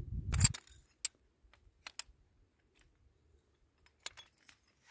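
A crunching noise, the loudest sound here, that stops about half a second in, followed by a few scattered light clicks and taps of ice-fishing gear being handled and set up at the ice hole.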